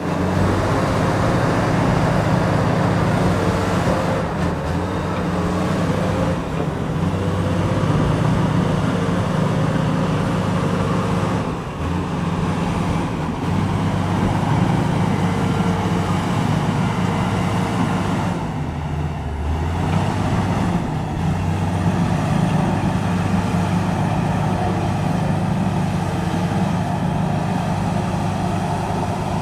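Bulldozer's diesel engine running steadily as it works, its note shifting up and down, with a brief drop in pitch about two-thirds of the way through.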